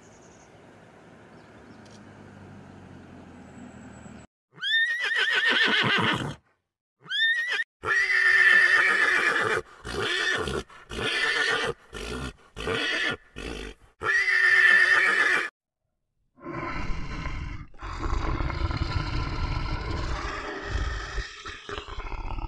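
Horses whinnying, loud and repeated, for about ten seconds, each neigh opening with a quick rise in pitch. This follows a few seconds of faint background sound. A bear then gives low, rough growling for the last several seconds.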